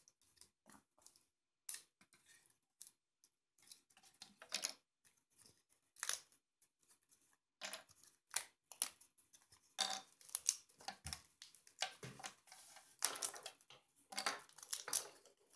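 Pieces of a 3D puzzle being pressed out of their printed punch-out sheet by hand: irregular snaps, tearing and scraping of the sheet, busier in the second half.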